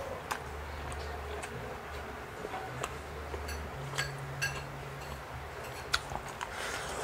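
Eating sounds while a meal of fried calamares is being eaten: scattered light clicks and crunches from chewing and utensils, roughly one a second, over a faint steady low hum.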